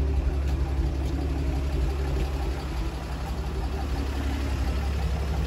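1961 Willys pickup's engine idling steadily.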